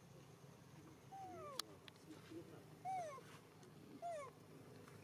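Baby monkey crying: three short cries, each falling in pitch, at intervals of one to two seconds, with a single sharp click between the first two.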